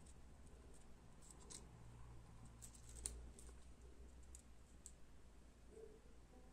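Small scissors making faint, irregular snips in watercolour paper while cutting around tiny stamped leaves, a few short clicks a second apart, the sharpest about three seconds in.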